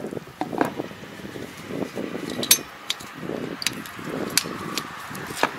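Metal clinks and knocks of a hand tool and parts against the gearbox casing of a Kobashi rotary tiller while it is being worked on: about half a dozen sharp, irregularly spaced clinks over low handling rustle.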